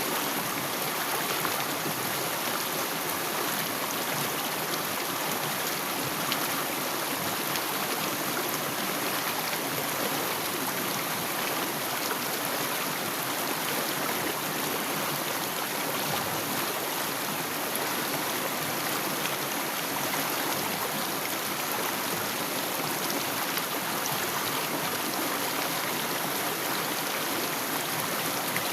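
Stream of water trickling and flowing steadily, an even rush with no breaks.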